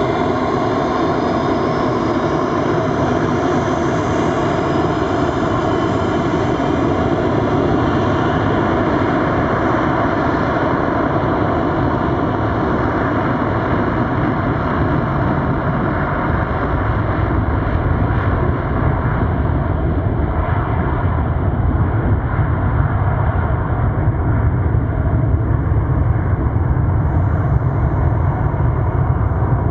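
Boeing 727-200 Super 27's three jet engines running very loud as the airliner taxis past. In the second half the low rumble grows louder as the engines spool up for the takeoff roll and the jet moves away.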